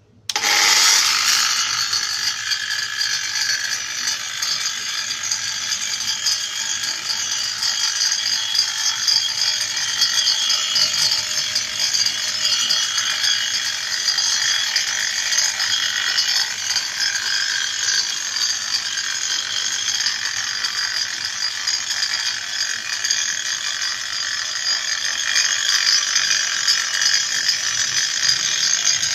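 Bosch GWS 8-100 CE angle grinder, converted into a small circular saw with a saw blade, running steadily at its low speed setting as it is pushed along a guide rail. The sound is a steady, high-pitched mechanical noise that starts just after the beginning.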